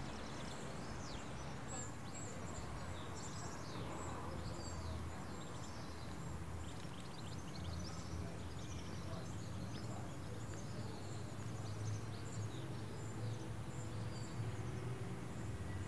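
Quiet outdoor ambience: small birds chirping and twittering in many short quick calls, over a steady low background hum.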